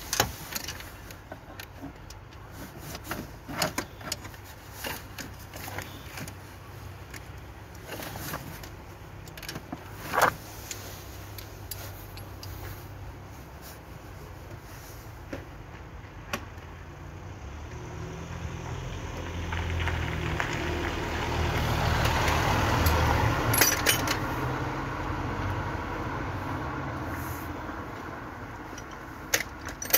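Scattered metallic clinks and knocks of hand tools working in a car's engine bay. Later, a passing vehicle's engine and tyre noise builds up, peaks and fades away over about ten seconds.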